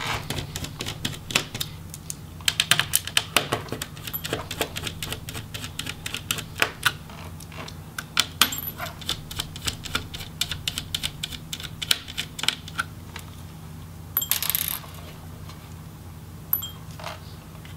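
A small Phillips screwdriver backing out the motherboard screws of an HP Pavilion 17 laptop's plastic base: several runs of rapid light clicks and ticks, with a brief scrape about fourteen seconds in.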